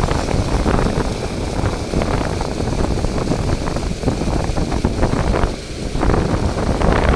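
Wind buffeting the microphone outdoors, a loud low rushing noise that rises and falls unevenly in gusts.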